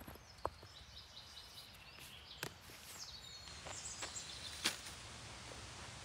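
Quiet outdoor background with faint high bird chirps and a few sharp knocks and clicks, from stones being set in place around a fire ring.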